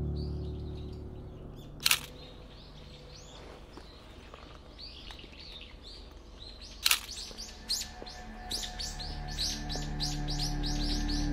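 Small birds chirping in short, quick calls that grow into a rapid run of chirps near the end, with two sharp clicks of a camera shutter about five seconds apart. Soft background music fades out at the start and comes back in near the end.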